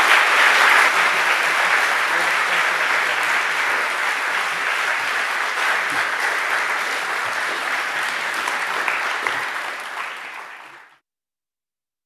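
Audience applauding at length after a talk, steady and slowly easing off, then cutting off suddenly near the end.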